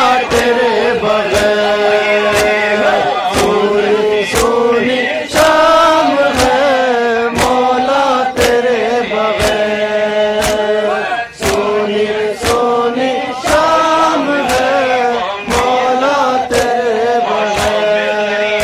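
Male mourners chanting a Muharram noha in unison, with held, drawn-out notes. Sharp chest-beating slaps of matam keep a steady beat, about once a second.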